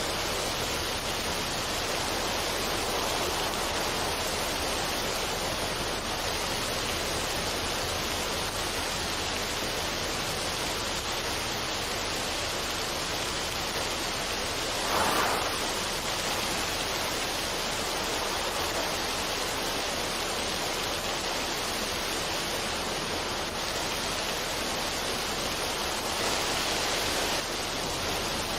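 Waterfall of a mountain stream running over rocks: a steady, even rush of water, with a brief louder splash about halfway through.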